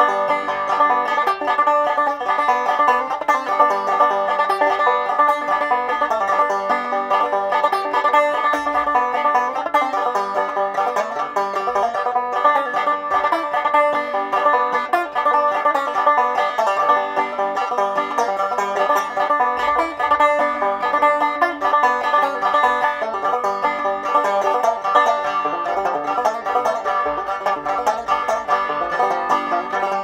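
Solo banjo played with a fast, unbroken run of plucked notes at a steady level, with no singing.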